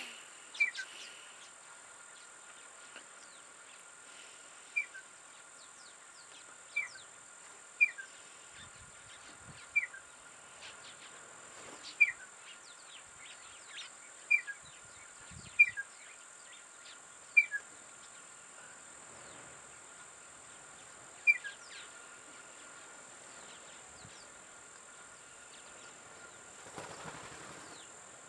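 A bird repeating a short, sharp two-note call that falls in pitch, about ten times at uneven intervals of one to four seconds. Under it runs a steady high-pitched insect drone.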